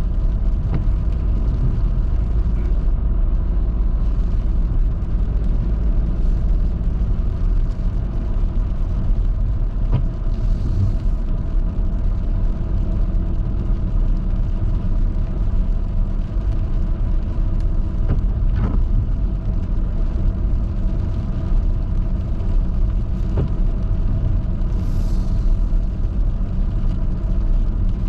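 Car driving along a wet highway: a steady low rumble of engine and road noise, with a few faint ticks and two brief hisses.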